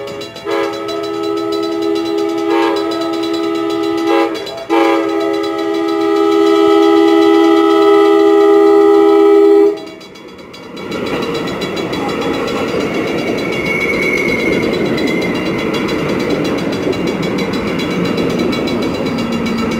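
Passenger train's multi-tone air horn sounding the grade-crossing pattern: long, long, short, then a long blast held until about ten seconds in. After it cuts off, the steady rush of the train rolling past over the crossing.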